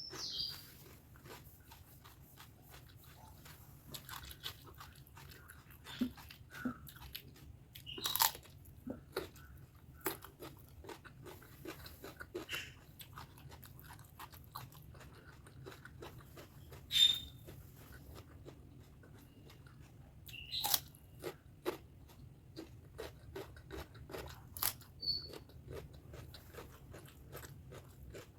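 Close-miked eating sounds: a steady run of small chewing clicks and smacks, broken by a few louder sharp clicks, as spicy pork fat curry and rice are chewed.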